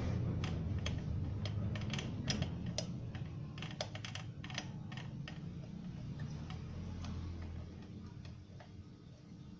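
Irregular light clicks and taps, a few a second, over a low steady hum. The clicks thin out and grow quieter toward the end.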